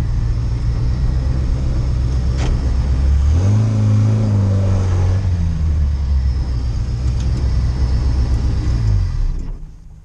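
Lada 2107 Group A rally car's engine running low and steady, heard from inside the cabin. About three seconds in it rises in pitch for a couple of seconds, then drops back down. It stops shortly before the end.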